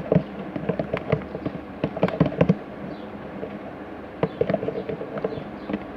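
Slime being mixed, with rapid irregular sticky clicks and pops.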